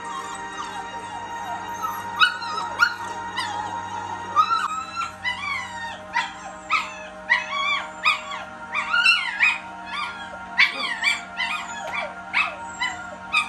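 A crated puppy whining and yipping in short, high-pitched cries that bend up and down, coming faster and louder from about halfway through.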